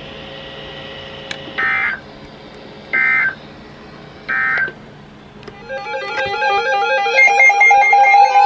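Emergency Alert System end-of-message signal: three short bursts of warbling two-tone digital data, about a second and a half apart, over a faint steady hiss. Music with a quick repeating melody then comes in about five and a half seconds in.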